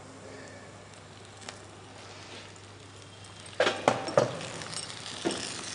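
Oil sizzling faintly in a clay pot with fresh fenugreek leaves just added. A little past halfway, a spatula starts stirring, giving a few sharp knocks and scrapes against the pot.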